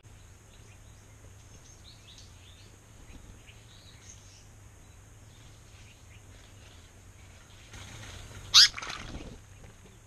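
Small birds giving faint short chirps and calls, with one brief, very loud sharp sound close to the microphone about eight and a half seconds in.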